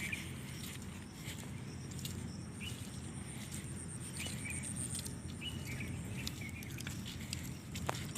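Short, repeated chirps from a small bird, one every second or two, over a steady low rumble with scattered faint clicks and a thin steady high tone.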